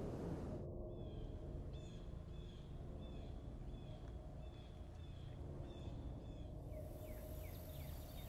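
Bird calling in a short chirp repeated about twice a second over a low steady rumble. Near the end, different falling calls take over, along with a faint steady hum.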